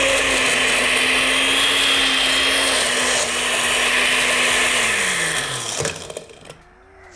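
Countertop blender with a glass jar running steadily, blending ice cream and milk into a shake. About four seconds in it is switched off and the motor winds down, its hum falling in pitch until it stops near the end.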